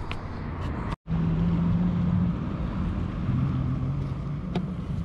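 Steady drone of a distant motor engine with a low hum that shifts slightly in pitch, under wind on the microphone. The sound cuts out for an instant about a second in, and a few faint clicks are heard.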